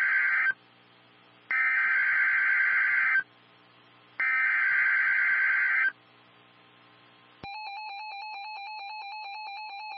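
NOAA Weather Radio alert signalling. The end of one burst of SAME digital header data, a harsh buzzy warble, is followed by two more bursts, each about a second and a half long with a pause of about a second between them. About seven and a half seconds in, a steady electronic alert tone begins.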